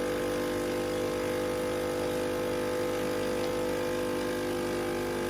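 Nespresso Gemini CS203 coffee machine's water pump humming steadily, pumping descaling solution through the machine during its descaling cycle.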